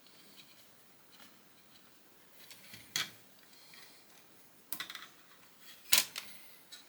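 Plastic Lego bricks being handled and pressed together, giving sharp clicks. There is one about three seconds in, a quick cluster near five seconds and the loudest near six seconds, with faint ticks between.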